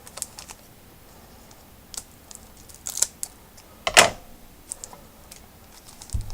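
Hands opening a trading-card pack and handling the cards: scattered light clicks and crinkles, with a louder rustle about four seconds in.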